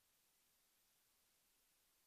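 Near silence: only a faint, even hiss, with no sound from the scene.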